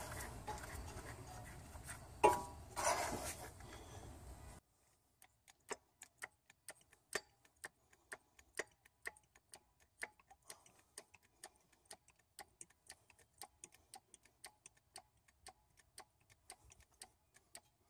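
Hydraulic hand pump and press cylinder being worked to press a wheel hub into a new bearing. A metallic clunk about two seconds in, then a long run of faint, sharp ticks, two or three a second.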